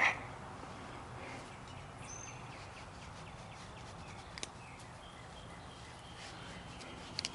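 Quiet outdoor background with faint bird chirps and a few light clicks, one at the start, one about four and a half seconds in and a pair near the end.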